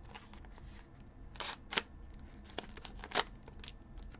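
A small knife slitting open the clear plastic wrap on a pack of origami foil paper: a run of short crackling clicks and scrapes as the plastic crinkles and the blade cuts.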